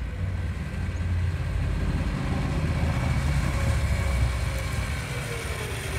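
Steady low rumble with an even hiss: outdoor background noise with no distinct source standing out.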